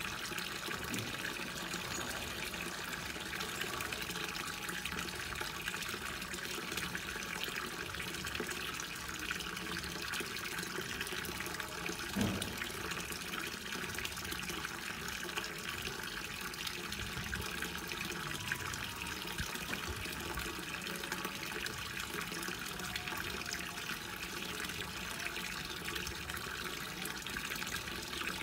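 A thin stream of water pouring from a pipe spout into a cement fish pond, splashing steadily on the water surface. A single short thump sounds about halfway through.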